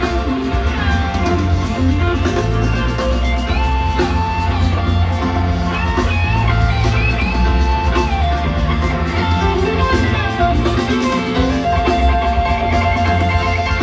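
Live rock band playing an instrumental jam: an electric guitar lead line with sliding, bent notes over bass and drums.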